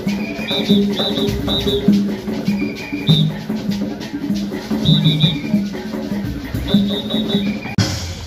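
Live street-band music with drums and shaken rattles over repeating pitched notes. Near the end it cuts abruptly to different, drum-led music.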